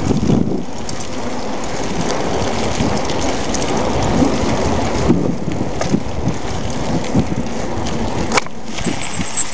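Bicycle riding over pavement: a steady, rough rolling noise of the tyres on the road and the bike over the surface, with occasional sharp clicks and knocks from bumps.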